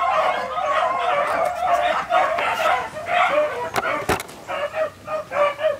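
A pack of beagles baying on a running rabbit, many hound voices overlapping, breaking into a quick run of short chop barks near the end.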